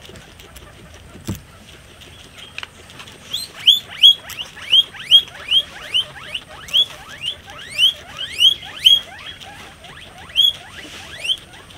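Guinea pig wheeking: a run of short rising squeaks, about two or three a second, starting a few seconds in. A single click is heard just over a second in.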